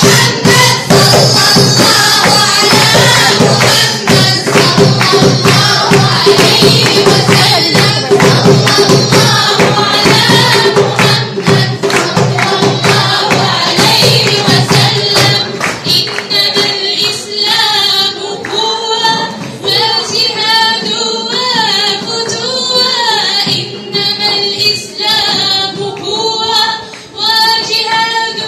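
Women singing together to a hand-held frame drum beaten in a steady rhythm; the drumming thins out about halfway through while the singing carries on.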